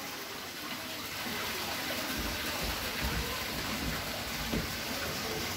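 Steady rushing noise of running water, with a few dull low thumps in the middle and a short tap near the end.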